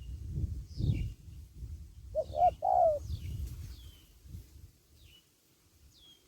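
Spotted dove cooing one three-note phrase about two seconds in, over thin, high, falling chirps from small birds scattered throughout. A low rumble sits under the first few seconds and fades out.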